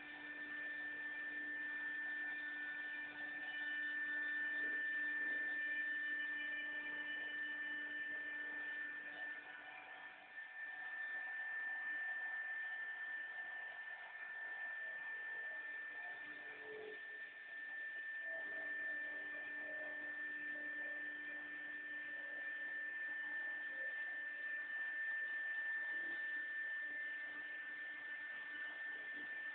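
4-axis CNC router running, with a steady high whine and a lower steady hum. Fainter tones shift slowly in pitch beneath them.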